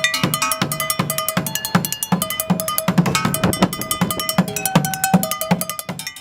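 Street drumming on upturned kitchen pots and pans: a fast, steady rhythm of stick strikes on metal, with deep thumps about three times a second and the pots ringing at clear pitches. It stops just before the end.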